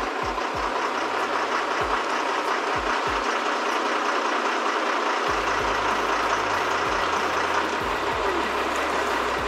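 A crane's engine running steadily as a steady mechanical drone while the crane holds a motorboat in its lifting slings; a deeper rumble joins about halfway through.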